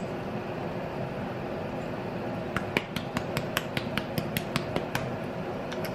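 Small spice jar shaken and tapped over a pan, giving a quick run of about a dozen sharp clicks at roughly four or five a second, over a steady background hiss.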